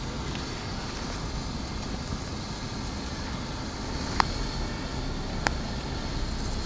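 Strong wind rumbling steadily on the microphone, with two sharp clicks or knocks about four and five and a half seconds in.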